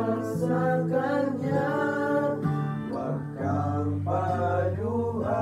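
Acoustic guitar being played with a voice singing along in long, held notes.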